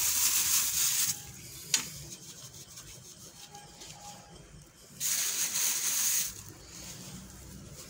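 A plastic scoop rustling and scraping in a plastic bag of powdered sodium bicarbonate, in two hissy bursts, one ending about a second in and one about five seconds in, with a single sharp click between them.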